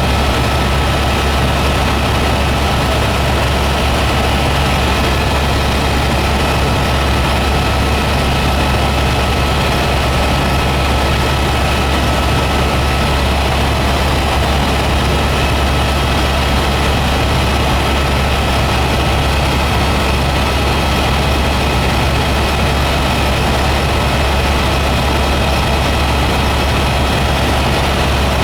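Helicopter in flight: a steady low drone from the rotor and engine with a steady high whine over it, unchanging throughout.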